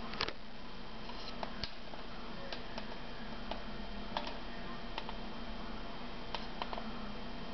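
Handheld camera handling noise: light clicks and ticks at irregular intervals over a steady hiss and low hum.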